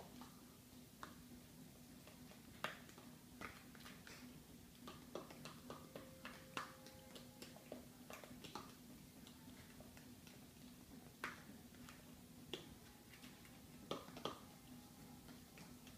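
Cake batter being mixed by hand in a plastic bowl: faint, irregular clicks and taps, roughly one every second or two.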